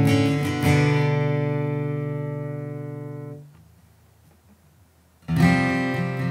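Taylor 714ce acoustic guitar: a chord strummed twice and left to ring, fading slowly until it is stopped about three and a half seconds in. After a couple of seconds of near silence, strumming starts again near the end.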